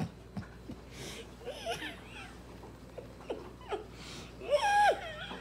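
Soft giggling and laughter, then about four and a half seconds in a short, high sung note that is held briefly and drops off at the end.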